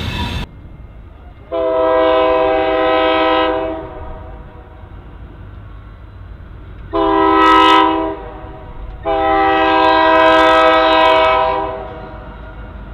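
A diesel freight locomotive's air horn blowing three times (long, short, long) as the train approaches a grade crossing, over the low rumble of the train.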